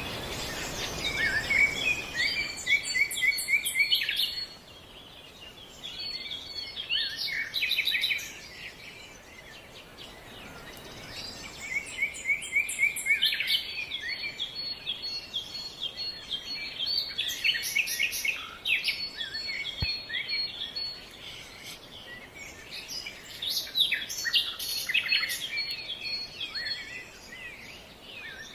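Several birds chirping in bouts of quick, repeated chirps, with a thin high note sounded in short runs over them and quieter gaps between the bouts.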